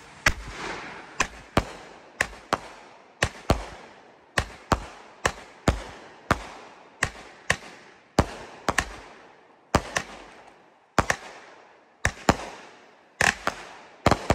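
Aerial fireworks going off: a steady run of sharp bangs, about two a second and often in close pairs, each trailing off in an echo.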